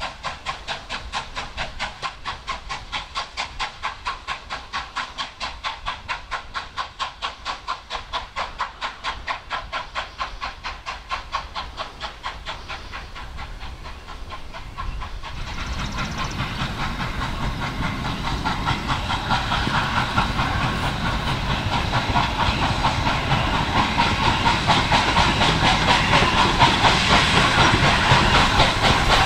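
Norfolk & Western 611, a J-class 4-8-4 steam locomotive, working under steam with steady rhythmic exhaust chuffs. About halfway through the sound becomes fuller and louder, with steam hissing, and it keeps growing louder as the locomotive approaches.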